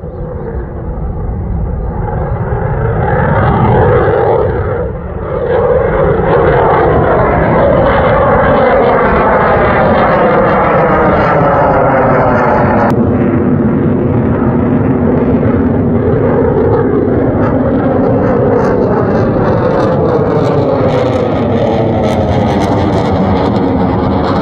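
Jet noise from an F-15 fighter flying overhead. It swells over the first few seconds, dips briefly, then holds loud and steady, with a slow sweeping, phasing quality as the jet passes.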